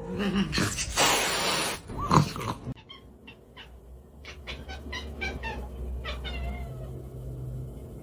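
Domestic cat meowing: a wavering call about two seconds in, then a run of short, quick calls. A loud burst of noise comes about a second in.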